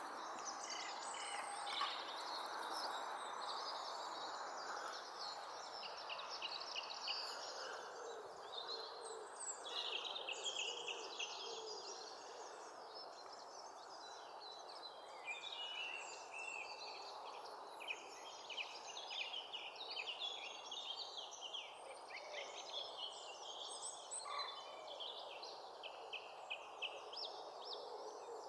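Small birds twittering and singing in quick high-pitched phrases throughout, over a steady background hiss.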